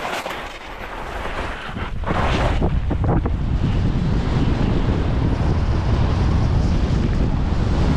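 Skis scraping over snow, with a couple of short hard scrapes about two seconds in, then heavy wind buffeting the microphone in a steady low rumble through the rest.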